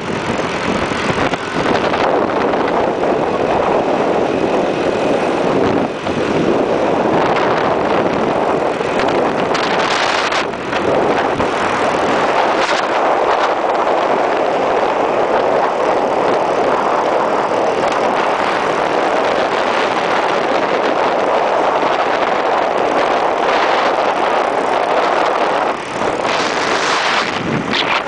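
Motorbike riding along a road: a steady, loud rush of wind and road noise with the bike's engine running, easing off briefly a couple of times.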